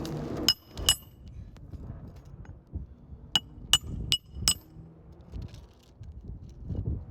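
Hammer striking metal with a sharp, bright ring, six blows: two about half a second apart near the start, then a quick run of four about two and a half seconds later.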